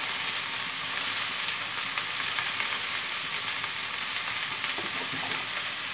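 Chopped okra frying in hot oil in a steel wok, a steady sizzle with fine crackling.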